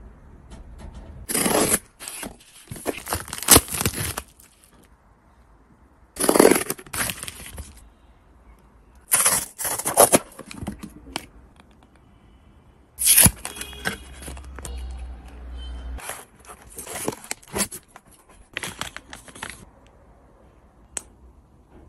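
Packaging being torn open and handled, in about seven separate bursts of tearing and crinkling with quieter pauses between them.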